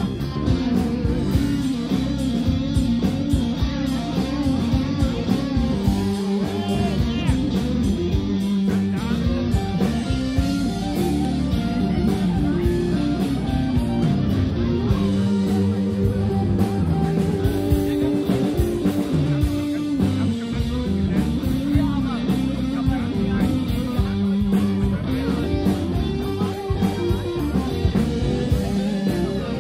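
Live blues-rock band playing an instrumental passage, with electric guitars, bass guitar and drums.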